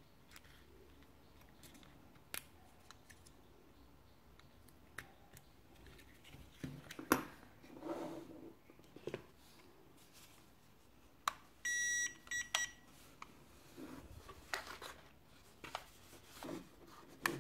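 Quiet clicks and knocks of small plastic parts being handled, as a battery is connected to a tiny toy drone and gear is set down on a desk. About twelve seconds in comes one short, high electronic beep.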